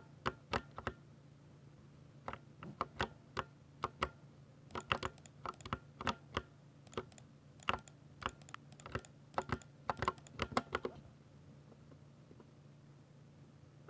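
Typing on a Ducky 60% mechanical keyboard with silver switches: quick, irregular key clicks and bottom-outs in short runs, over a faint steady low hum. The typing stops about eleven seconds in.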